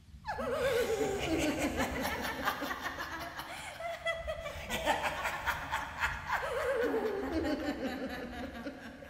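A person laughing: a drawn-out cackle falling in pitch, then a second falling laugh about six seconds in.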